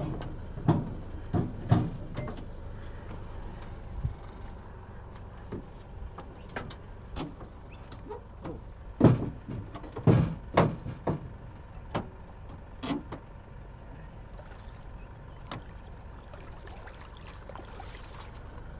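Scattered clunks and knocks of an aluminium dinghy and its gear being handled, the loudest two thuds about nine and ten seconds in, over a steady low rumble.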